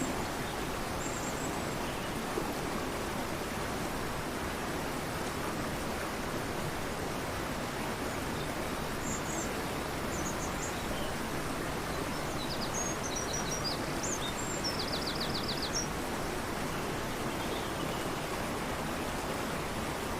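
Fast-flowing river rushing steadily, with a few small birds chirping high over it, including a quick trill of ticks about two thirds of the way in.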